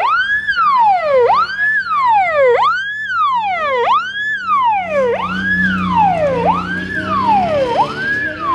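Wailing siren on a vintage Volga sedan fitted with a blue roof beacon, sweeping up and down in pitch a little under once a second and a half, each cycle a quick rise and a slower fall.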